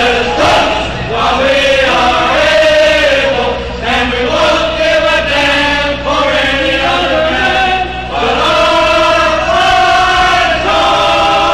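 A group of men singing a fraternity song in chorus, holding long notes.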